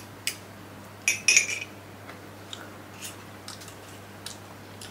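A fork clinking and scraping against a tall drinking glass as instant noodles are stirred in it. There is a cluster of louder clinks about a second in, then a few fainter taps.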